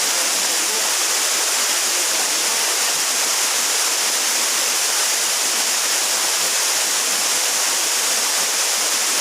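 Waterfall: water rushing down in a steady, even hiss that does not change.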